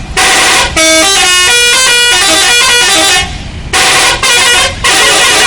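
Telolet horn of an Agam Tungga Jaya bus: a multi-tone musical horn playing a tune of stepped notes. A long phrase of about three seconds, a short pause, then three shorter blasts.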